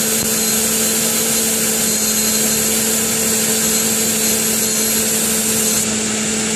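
Car engine running at idle with a steady, unusual hum and hiss, the noise first heard after an oil change with Engine Restore additive put in the oil.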